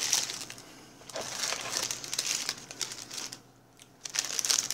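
Paper fast-food wrappers and bags rustling and crinkling as they are handled and opened, in irregular bursts with a short lull about three and a half seconds in.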